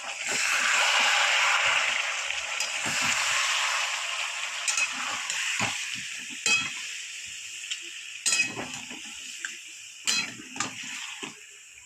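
Chicken curry with yogurt and water sizzling in a hot pan while it is stirred with a spatula. The sizzle is loudest at the start and dies down steadily. Several sharp knocks and scrapes of the spatula against the pan come through in the second half.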